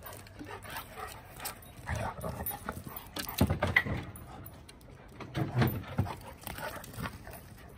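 Dogs playing rough and chasing each other, with short dog vocalizations in a few bursts, the loudest about three and a half seconds in and again near six seconds.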